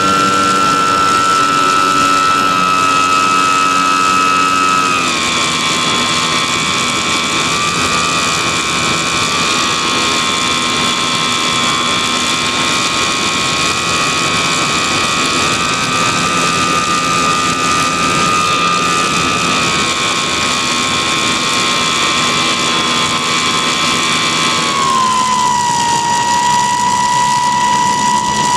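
E-flite Apprentice S 15e's brushless electric motor and propeller, heard from on board in flight: a steady high whine that drops in pitch about five seconds in and again near the end as the motor slows, over a rush of air.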